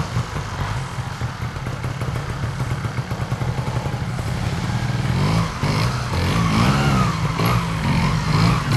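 Trials motorcycle engine revving unevenly under load as the bike climbs a steep, rough slope, its pitch rising and falling. It grows louder about halfway through.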